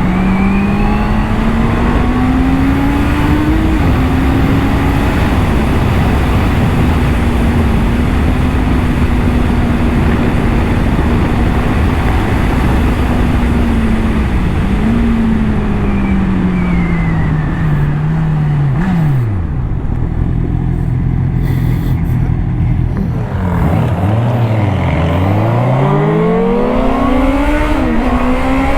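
Honda CBR650R inline-four engine under way. It holds a steady speed, then slows with the revs falling over several seconds and sits low for a few seconds. Near the end it accelerates hard, the revs climbing and dropping back in quick steps as it shifts up through the gears, over a rush of wind noise.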